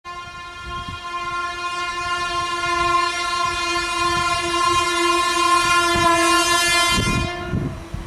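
Horn of an Indian Railways WAP-1 electric locomotive sounding one long, steady blast as the train approaches at speed, cutting off shortly before the end. Beneath it the wheels rumble and clatter on the rails, growing louder near the end as the locomotive draws closer.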